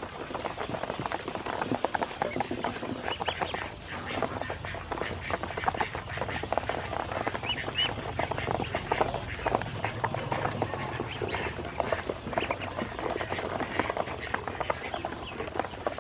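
Ducklings dabbling and pecking at feed in a shallow basin of water: a dense, irregular patter of quick wet clicks and splashes from their bills, with an occasional short high peep.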